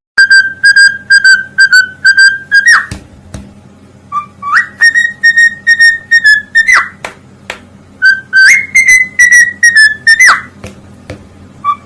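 Parrot whistling loudly in three phrases. Each phrase is a quick run of short notes at one high pitch and ends in a fast upward-swooping note.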